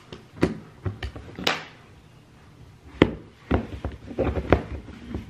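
Manual can opener clicking and clunking on a metal can while someone works to get it to bite: scattered sharp knocks and a scrape, the sharpest about three seconds in, then a quick run of knocks.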